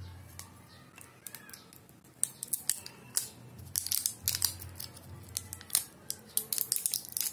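Hands unwinding a coiled USB charging cable, a run of short crisp clicks and rustles that come thick and fast from about two seconds in.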